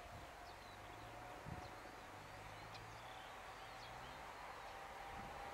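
Faint rural ambience: scattered short bird chirps over a faint steady hum, with one soft thump about one and a half seconds in.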